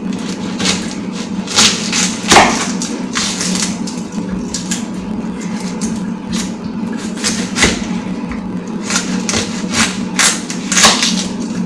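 Knife slicing an onion, striking the chopping board in irregular knocks about once a second, over a steady low hum.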